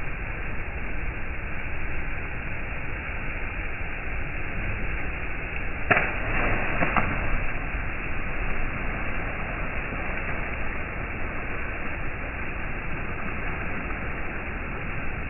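A person jumping from a rock into a river splashes into the water about six seconds in. The splash is sudden and lasts about a second, over a steady background noise.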